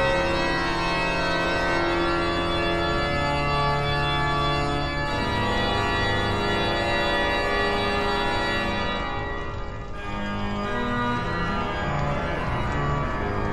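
Organ music: full, sustained chords of many held notes, the harmony shifting every few seconds, with a brief dip about ten seconds in before a new chord enters.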